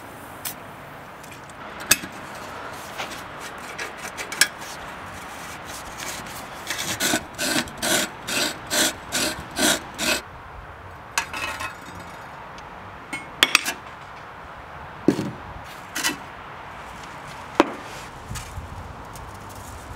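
Hand tools working on the rusty cast-iron and sheet-steel parts of a paraffin stove being dismantled: a run of about eight quick, rhythmic scraping strokes, then scattered sharp metallic clicks and knocks as parts are handled.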